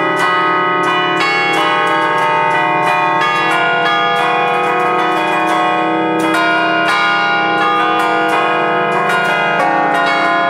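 Five bronze church bells cast in 1932 by the Fratelli Ottolina foundry, tuned on D-flat, struck in quick melodic succession from a bell keyboard. The strokes overlap on a continuous ringing hum, loud and close.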